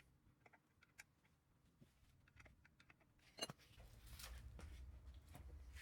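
Near silence with faint, scattered metallic clicks of hand tools working on the motorcycle's chain adjuster bolts, and one sharper click about three and a half seconds in.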